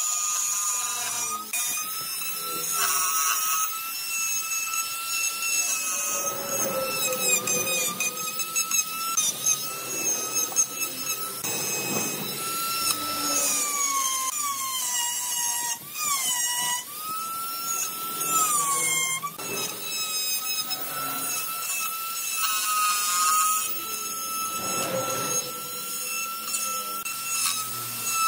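Electric die grinder with a carving burr cutting into wood. A high, steady motor whine sags in pitch several times as the bit bites in, then picks back up.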